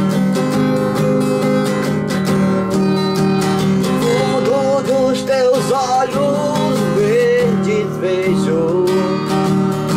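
Instrumental break of a song: steadily strummed guitar, joined about four seconds in by a melody line that bends up and down in pitch.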